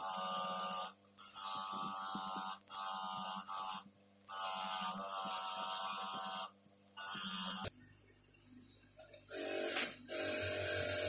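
Bench grinder running with a small pipe wrench part pressed against its wheel: a buzzing, ringing tone that drops out several times and cuts off suddenly about two thirds of the way in. A harsher hissing grind takes over near the end.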